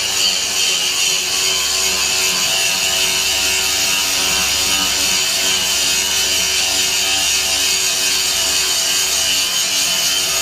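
Angle grinder running steadily under load, its abrasive disc grinding heavy rust off a quarter-inch steel plate: a loud, even hiss with steady whining tones underneath.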